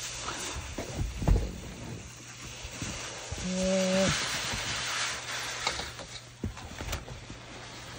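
Snow being cut from a roof with a SnowPeeler roof rake: knocks of the pole and cutter head, then a longer hiss as the snow slab slides down the plastic sheet, with a brief pitched squeak in the middle.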